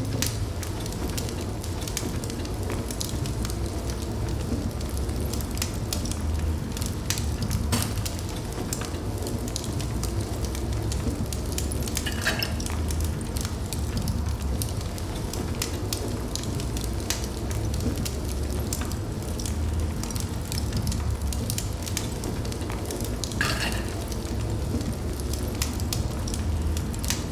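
Wood fire burning in a fireplace: a steady low rumble of flames with frequent small crackles and pops, and two louder crackles, one near the middle and one near the end.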